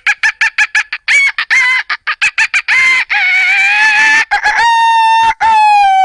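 A man imitating a chicken with his voice: a fast run of clucks, about six a second, then longer cackling calls, ending in two drawn-out rooster crows, the last one falling in pitch.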